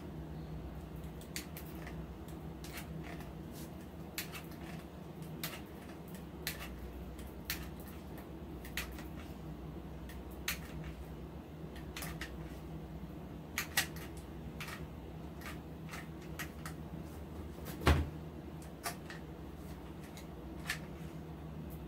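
Light clicks and taps from working a hot glue gun, scattered about once a second, with one louder knock near the end, over a steady low hum.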